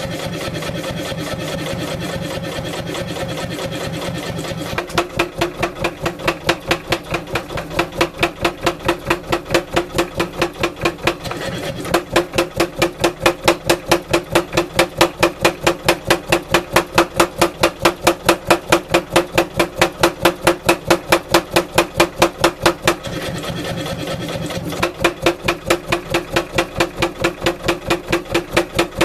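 Power hammer with a 16 kg head pounding a hot wootz ingot in fast, evenly spaced runs of several blows a second, drawing it out into a bar. It starts with a few seconds of the machine running without striking, and the blows pause briefly near the end before starting again.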